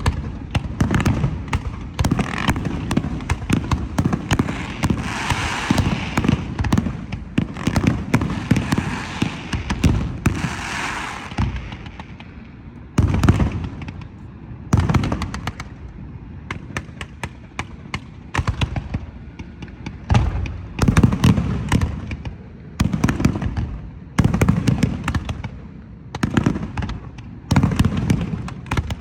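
Fireworks display: aerial shells bursting in a dense run of booms, with a long crackling stretch in the first half, then single booms about every second or two.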